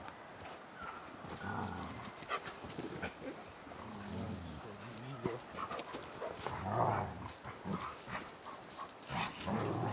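Alaskan Malamutes making short, low vocal sounds at irregular moments, with scattered light clicks.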